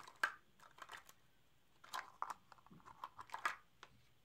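Scattered light clicks and taps of plastic kitchen utensils being handled, a measuring spoon set and a silicone spatula picked up and moved about, with a few faint rustles.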